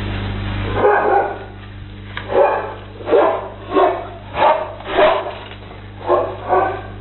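A dog barking repeatedly, about nine sharp barks starting about a second in, spaced roughly half a second to a second apart, over a steady low hum.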